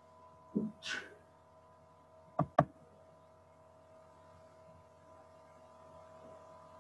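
Two sharp computer-mouse clicks in quick succession, about a fifth of a second apart, a little over two seconds in, over a faint steady electrical hum. A short breath is heard about a second in.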